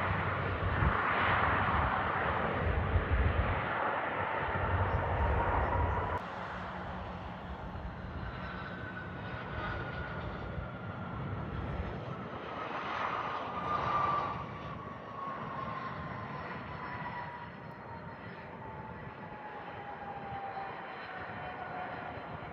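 Jet airliner's engines passing close: a loud rush of engine noise for the first several seconds that drops away, then a high whine that slowly falls in pitch as the aircraft moves off.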